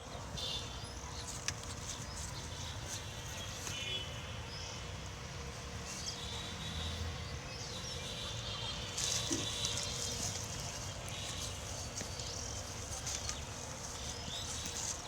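Outdoor farm ambience: a steady low background noise with faint bird chirps now and then, and a brief louder stretch of high rustling about nine seconds in.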